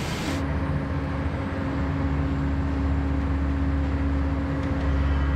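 Water splashing for a moment, then a cut to a steady low machinery drone with a constant hum: a ship's crane running as the recovery basket is hoisted.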